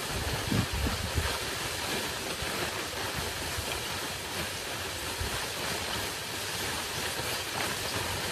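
Steady rushing wind noise on the microphone, with a few low knocks in the first second or so.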